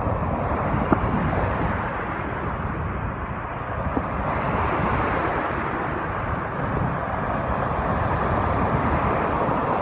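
Steady wind rumbling on the microphone over a rushing, surf-like wash, with a faint click or two.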